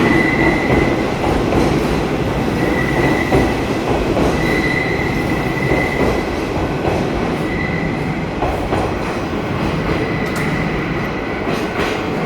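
Hanshin limited express train pulling out of the station with steady running noise from the cars and wheels. A high squeal of the wheels on the rails comes and goes several times.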